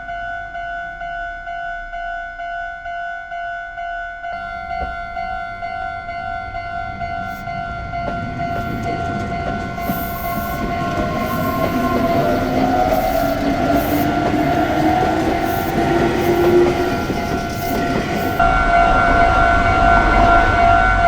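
Japanese railway level-crossing alarm ringing a steady, repeating electronic tone while an electric train approaches and passes. From about 8 s in the train grows louder, with wheels clattering on the rails. A motor whine climbs in pitch, and the crossing bells turn louder near the end.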